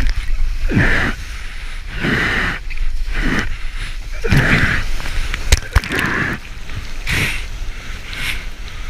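Whitewater splashing and sloshing over a camera at the water surface, in surges about once a second over a steady low rumble, with two sharp knocks a little past halfway.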